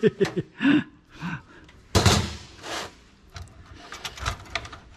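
Steel drive caddy being slid out of an old HP desktop's sheet-metal case: a loud scraping rush about two seconds in, a shorter one just after, and a few light metal clicks and knocks.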